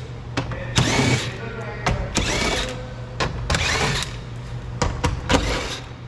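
Small power tool, such as a cordless driver, run in four short bursts, each with a rising whine, with sharp clicks between them.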